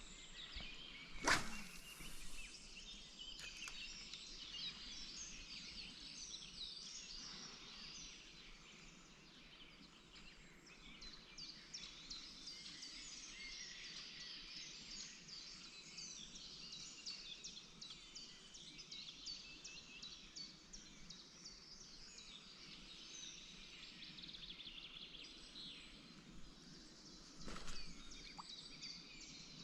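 Faint, continuous chorus of birds singing and chirping, with a sharp knock about a second in and a softer one near the end.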